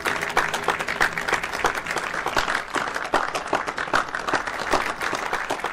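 A crowd clapping: steady applause made of many hands.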